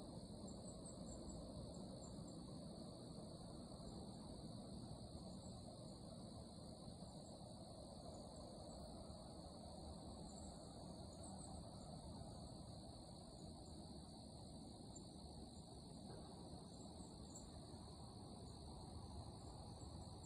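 Faint, steady high-pitched insect chorus that does not change, over a low rumble of outdoor background noise.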